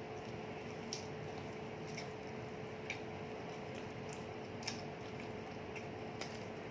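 Faint chewing and wet mouth sounds of people eating, with a few soft scattered clicks over a steady low hum.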